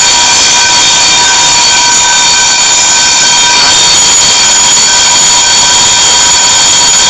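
Homemade alarm bell, a small 9-volt motor rattling against an empty Pringles can, ringing loudly and without a break as a harsh buzzing clatter with several steady high tones.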